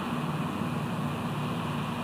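Steady rushing background noise with a low hum underneath, unchanging throughout.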